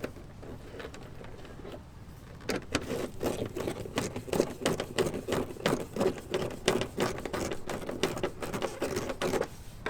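Ratchet wrench clicking in quick, uneven strokes as a nut on the mud-flap mounting hardware is tightened; it starts about two and a half seconds in.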